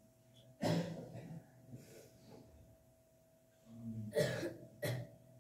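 Worshippers coughing, about three coughs: a loud one a little under a second in, then two more close together near the end. A faint steady hum runs beneath them.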